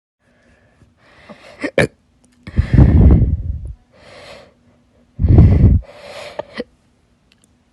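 A person hiccuping: a sharp hiccup about two seconds in, then two loud rushes of breath close on the microphone, each trailing off into fainter breathing.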